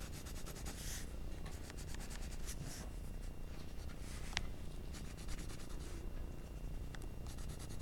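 Graphite pencil scratching across paper in bursts of rapid short strokes with brief pauses between, as shading is built up, with a couple of single light clicks.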